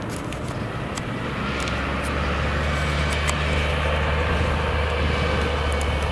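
Diesel engine of a heavy farm vehicle driving past on a dry dirt track, a steady low drone that grows louder about a second in, over tyre and track noise with scattered sharp ticks.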